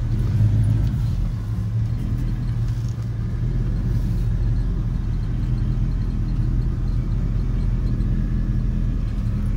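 1951 Chevrolet pickup's engine, still cold and not yet warmed up, running steadily at low speed as the truck creeps away, heard from inside the cab.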